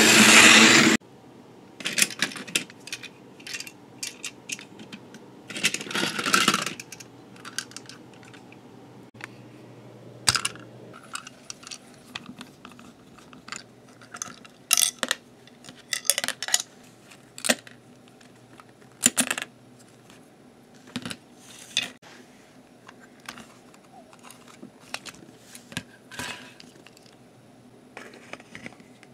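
Scattered short plastic clicks, taps and knocks as a Trackmaster toy truck is handled and taken apart, with a longer scraping noise about six seconds in. A loud noise about a second long opens it.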